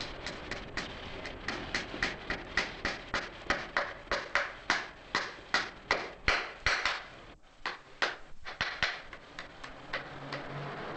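A farrier's hammer striking nails into a horseshoe on a horse's hoof: quick, even metallic taps, about three a second, with a short break about seven seconds in before a few more strikes.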